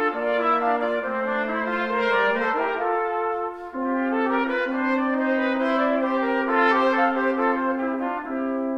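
Brass quintet playing classical chamber music: trumpets, French horn and trombone sounding held chords with moving lines, with a brief drop in loudness about three and a half seconds in.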